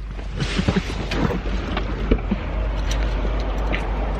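Steady low rumble of a car heard from inside the cabin, with a brief rustle about half a second in and a few light clicks.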